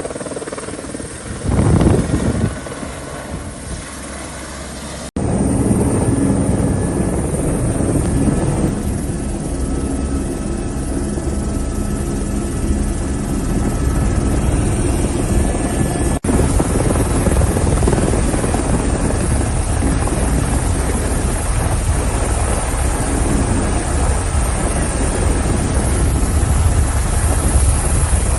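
Police helicopter's rotor and turbine running steadily and loudly, as when hovering close by; the noise jumps suddenly louder about five seconds in and briefly drops out once later.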